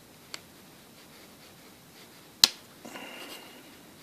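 Plastic back cover of a SKY 7.0Q smartphone being pried off with a small flat screwdriver: a faint click, then about two and a half seconds in a sharp snap as a retaining clip pops free, followed by a brief scrape of the blade along the seam.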